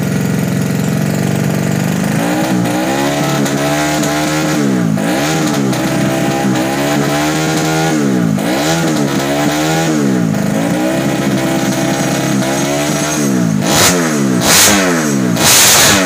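Modified 125cc four-stroke single-cylinder bebek (underbone) motorcycle engine idling, then revved by hand in repeated blips, its pitch climbing and falling with each. The last few blips near the end are sharper and louder.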